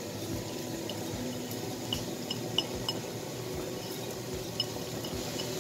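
Dry basmati rice poured from a glass bowl into a hot wok of frying onions and seafood, over a steady sizzle, with a handful of light ticks from falling grains.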